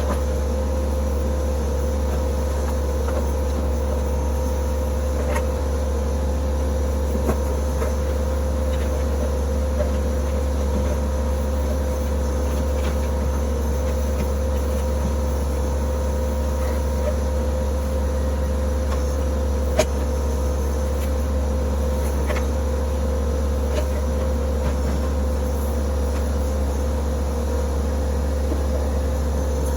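Diesel engine of a TYM T264 compact tractor running at a steady speed while the backhoe is tried out, with a couple of short sharp knocks, about 7 and 20 seconds in.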